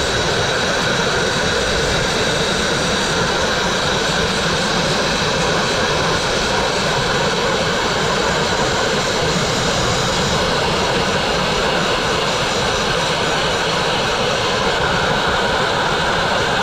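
Dustless (wet abrasive) blast nozzle spraying fine crushed glass and water at a brick wall: a loud, steady hiss as the stream strips cement-backed masonry paint off the brick.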